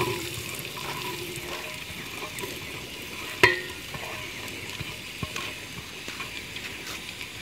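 Sliced onions sizzling as they fry in hot ghee in a metal pot: a steady hiss, with one sharp metal clink about three and a half seconds in.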